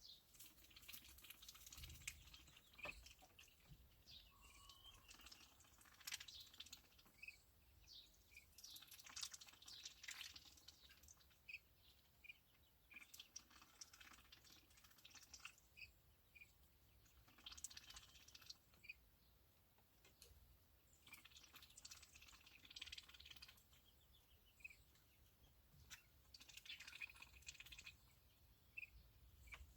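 Backyard poultry pecking at sweetcorn: faint rapid clicking pecks in bursts every few seconds, with short high chirps from the birds in between.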